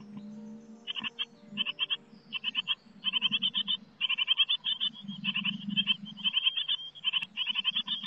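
Great tit nestlings begging in the nest box as a parent brings food: rapid bursts of short, high-pitched calls starting about a second in, over a low rumble.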